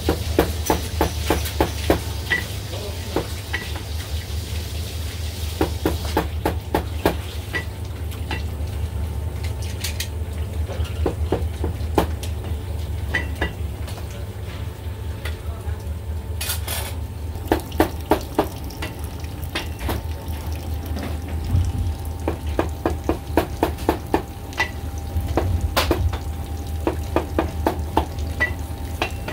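Chinese cleaver chopping through braised beef tripe and brisket onto a thick round wooden chopping block, knocking in quick runs of strokes with pauses between. A steady low hum runs underneath.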